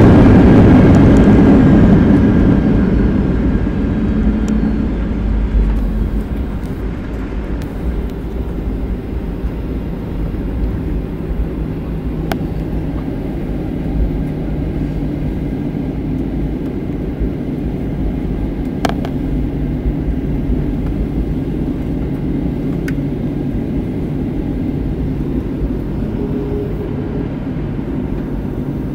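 Jet airliner heard from inside the cabin after landing. The engines and rushing air are loud at first and die away over the first several seconds as the plane slows on the runway. They settle into a steady engine hum while it rolls on toward the taxiway, with a few faint clicks.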